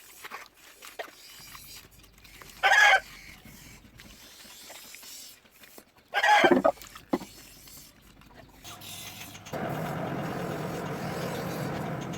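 A chicken clucks loudly twice, short calls the second of which falls in pitch. Near the end a steady rubbing or rasping noise starts and continues.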